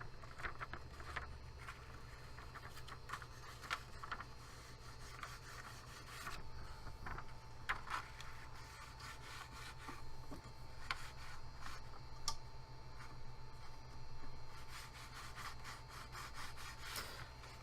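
A sheet of plain paper rubbed and slid under a 3D printer's nozzle while the bed is being levelled, with scattered light scrapes and clicks as the bed is handled. Under it runs a steady hum.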